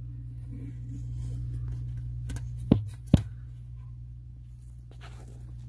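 Handling noise from a phone and hand working inside a wooden speaker cabinet: two sharp knocks close together about three seconds in, over a steady low hum.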